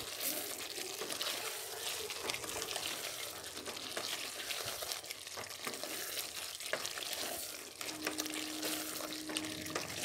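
Chicken pieces and spiced tomato masala frying in a steel kadai with a steady sizzling hiss. A wooden spatula stirs and scrapes through them, knocking lightly against the pan. This is the bhuna stage, with the ground spices being fried into the chicken.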